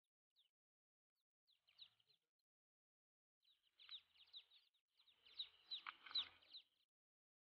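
Wild ducklings peeping: faint, high, quick down-slurred cheeps in short clusters, getting busier and louder over the second half.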